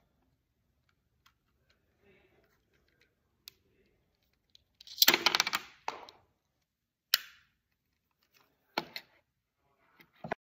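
A small black puzzle box handled in the hands: scattered light clicks, then a loud burst of rapid rattling about five seconds in as it is worked open, followed by single sharp clicks. Near the end it knocks down onto a wooden tabletop.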